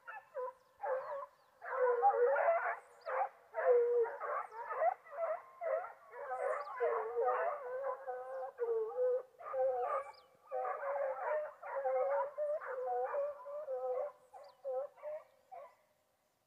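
A pack of foxhounds baying in chorus, overlapping long howling cries and barks, the hounds giving tongue as they work a wild boar; the cry stops shortly before the end.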